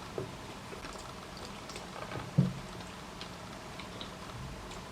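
Faint eating sounds: wet chewing and mouth noises with scattered light clicks. A brief low voice sound comes about two and a half seconds in.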